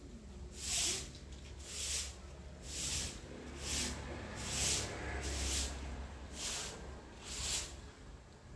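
A soft broom sweeping a tiled yard in steady strokes, about one swish a second.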